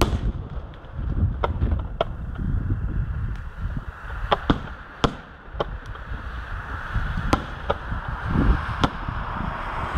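Distant aerial firework shells bursting: a scattering of sharp cracks, a second or so apart, over a steady low rumble, with a hiss building in the second half.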